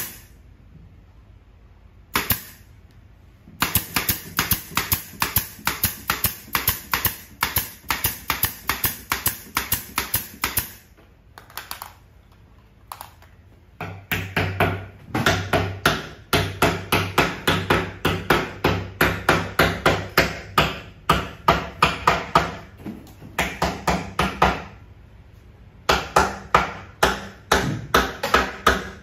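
Nails being driven into the wooden panels of a subwoofer cabinet: runs of quick, sharp strikes, about three a second. There are short pauses about eleven seconds in and again near twenty-five seconds.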